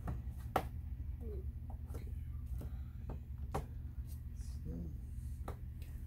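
A handful of sharp plastic clicks as fingers pry at the seam of a Toshiba all-in-one's plastic back cover, working its clips loose, the loudest about half a second in, over a steady low hum.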